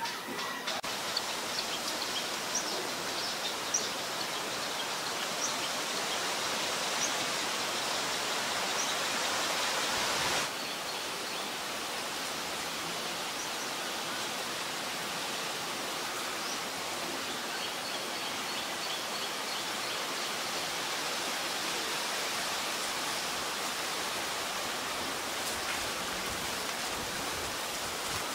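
Steady hiss of outdoor background noise, with faint, short, high chirps of small birds scattered through it. The hiss drops slightly in level about ten seconds in.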